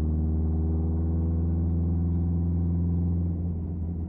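Drone of a turbocharged Subaru WRX STI flat-four through a Tomei Expreme Ti titanium cat-back exhaust with a catless downpipe, heard from inside the cabin while cruising. The drone holds steady, then eases off about three seconds in as the throttle is lifted.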